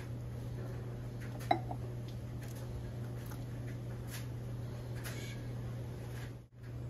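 Small metal parts clicking as they are handled and fitted onto the shaft of a Honda GX690 engine, with one sharp metal clink about a second and a half in, over a steady low hum.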